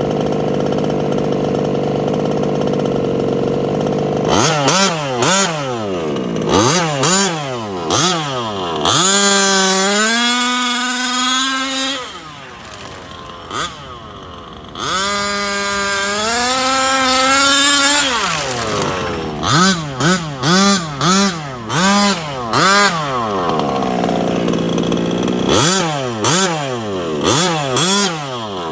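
Gasoline two-stroke engine of a Losi 5IVE-T 2.0 large-scale RC truck. It idles, then is blipped in a series of quick revs. Two longer runs rise and hold high, with a quieter stretch between them while the truck is far off, then come rapid blips about two a second before it settles back to idle.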